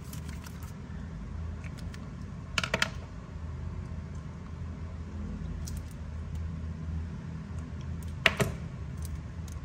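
Scattered light clicks and taps from small hard objects being handled, with a short cluster about two and a half seconds in and a few single clicks later, over a steady low hum.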